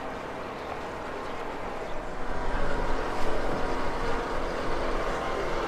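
Motorboat engine running steadily on the river, growing louder about two seconds in.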